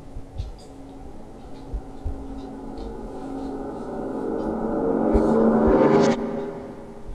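A tense sound-design drone of steady pitched tones, swelling gradually louder for several seconds and then cutting off suddenly about six seconds in. Faint low thuds sound a few times underneath.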